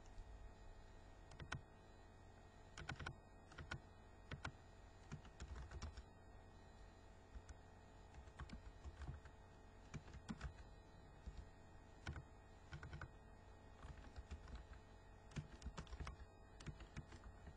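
Computer keyboard being typed on: faint key clicks in short irregular flurries with pauses between them, over a steady low electrical hum.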